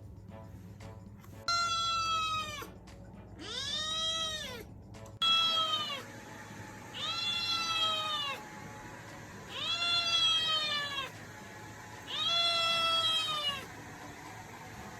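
Munchkin kitten meowing: six drawn-out meows, each about a second long, rising and then falling in pitch.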